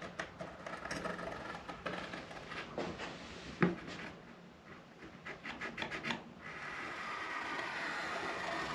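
A scribing compass drawn along a curved wooden deck beam, scraping and rubbing as it marks the curve onto a board template held against it. A sharp tap comes about three and a half seconds in, and the scraping turns steadier near the end.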